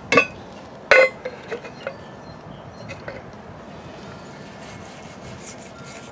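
Two sharp metallic clinks with a short ring, about a second apart, followed by a few lighter taps: a tool knocking against the aluminium alloy wheel.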